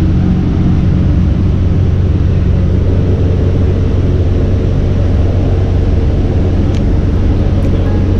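Bus engine running, a steady low drone heard from inside the bus cabin.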